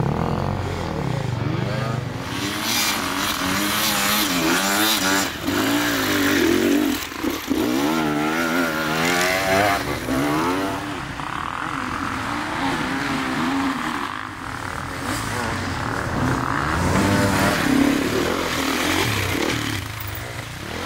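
Enduro dirt bike engines revving up and down over and over under hard throttle, the pitch rising and falling as the bikes climb loose sand.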